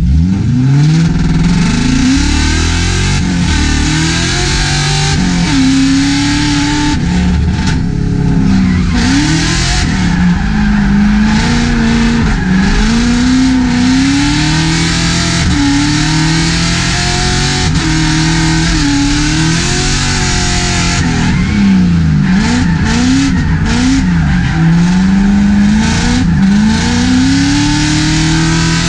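Drift car's engine revving hard and dropping back over and over as it is driven through a drift, heard from inside the stripped cabin, with a steady hiss of tyre squeal throughout.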